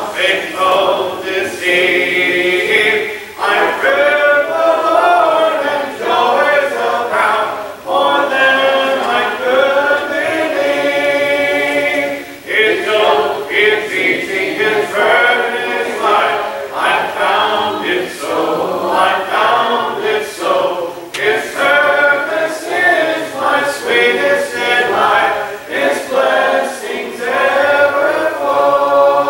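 Church congregation singing a hymn a cappella, many voices together with no instruments, phrase after phrase with short breaks for breath.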